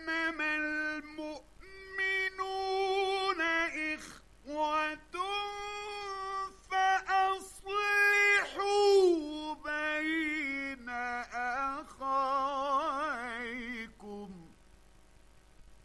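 A male Quran reciter chanting in the ornamented mujawwad style: a high melodic voice in long drawn-out phrases with wavering ornaments. It ends on a falling note about fourteen and a half seconds in.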